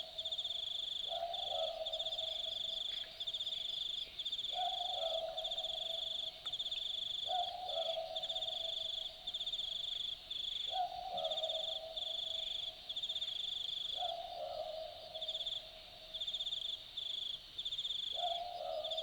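Australian boobook owl giving its typical two-note 'boo-book' call, six times at intervals of about three to four seconds. Under the calls runs a loud, high, continuous rapid-pulsed trill.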